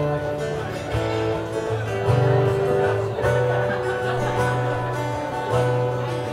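Acoustic guitar strummed in a steady instrumental lead-in, the chords changing every second or so, before the vocals come in.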